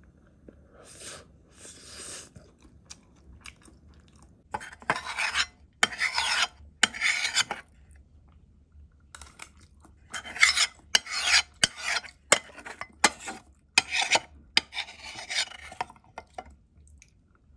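Cutlery scraping and clinking against a dish: a series of short rasping strokes with sharp clicks between them.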